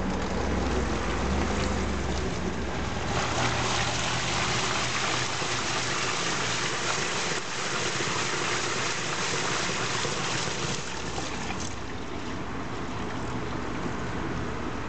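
LG 13 kg direct-drive inverter washing machine running, water pouring and splashing in its drum in a steady rush, with a low motor hum in the first couple of seconds.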